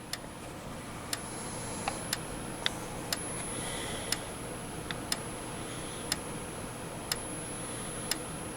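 Gentex Commander 3 remote strobe (GES3-24WR) in alarm after a pull station is pulled, clicking sharply about once a second as it flashes. A faint steady high-pitched whine runs underneath.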